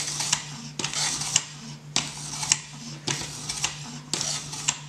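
Fine whetstone on a guided-rod knife sharpener scraping along a pocket knife's steel edge in five even strokes, about one a second, with a few sharp clicks among them. A steady low hum runs underneath.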